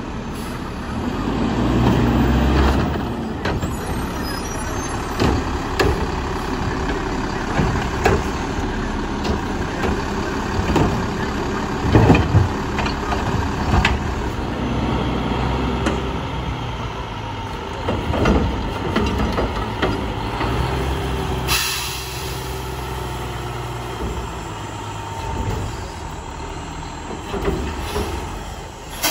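Front-loading garbage truck at work on a Mack LEU chassis with a Heil Half/Pack body: its diesel engine runs and revs up near the start, and repeated clanks and bangs come from carts being handled. A short air-brake hiss comes about two-thirds of the way through.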